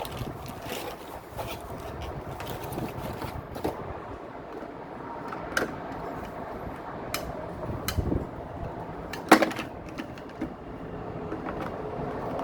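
A toy and its packaging being handled: scattered light clicks and taps over a low rustle, with one sharper knock about nine seconds in.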